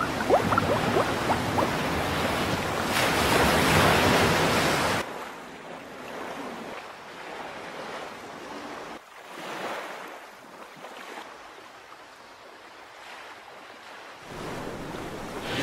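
Stormy sea: rushing waves and wind, loud for about five seconds. It then drops suddenly to gentle waves lapping, with one wave swelling about nine seconds in, and builds again near the end.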